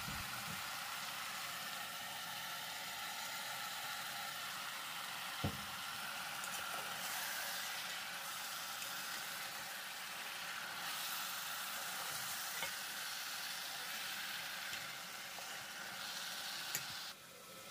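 Marinated beef sizzling steadily in a rice cooker's hot non-stick pot of fried onions and whole spices as it is stirred with a spatula: the meat being seared and braised (kosha) in the masala. A single knock about five and a half seconds in, and the sizzle cuts off near the end.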